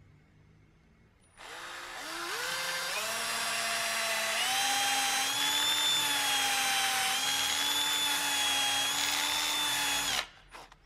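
Cordless drill boring a small hole into a turned wooden container. The motor whine starts about a second and a half in, climbs in pitch in steps over the next few seconds, holds steady, then cuts off near the end, followed by one brief short burst.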